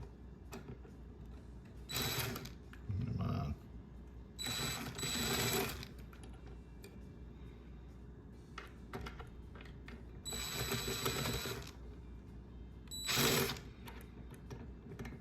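Power drill running in five short bursts, each from about half a second to a second and a half long, trying to back out a woofer mounting screw whose T-nut has come loose behind the baffle.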